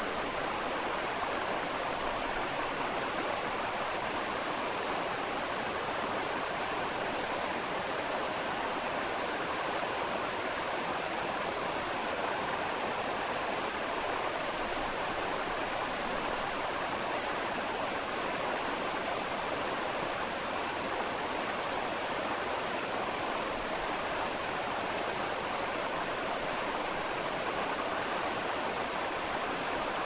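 River flowing with a distant waterfall: a steady, even rush of water that neither swells nor breaks.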